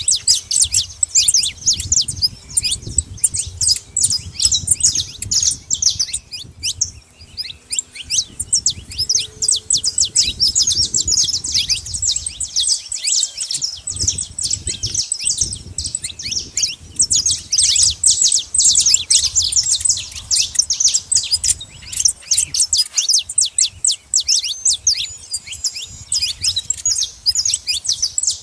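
Saffron finches chirping and chattering, a dense run of quick, sharp high chirps with hardly a pause, several birds calling over one another. A faint low rumble sits underneath.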